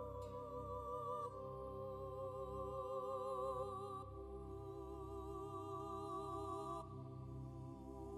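Background music: a slow melody of long held notes with a wavering vibrato, shifting to a new note every few seconds over a steady low bass.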